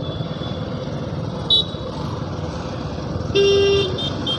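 Motorcycle engine running with road noise while riding slowly through town traffic. A short high beep sounds about a second and a half in, and near the end a vehicle horn honks for about half a second, followed by a couple of short toots.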